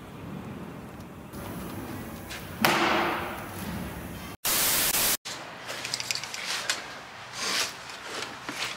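A short burst of even static hiss, switched in and out sharply about halfway through, amid irregular clatter and rustling.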